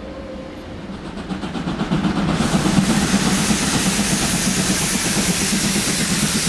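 Steam locomotive drawing near at low speed, its running rumble growing louder, with a steady hiss of steam from its open cylinder drain cocks that sets in suddenly about two and a half seconds in.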